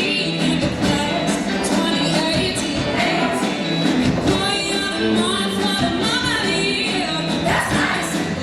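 A show choir singing a song with its own live band accompanying.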